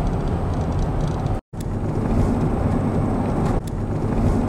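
Steady low road rumble of a moving car, heard from inside the cabin. The sound drops out completely for a moment about a second and a half in.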